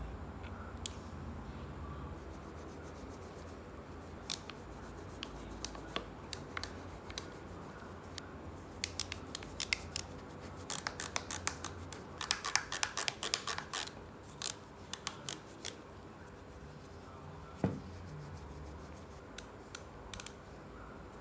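Irregular sharp clicks and ticks, a few scattered at first, then a rapid run of them a little past the middle before they thin out again.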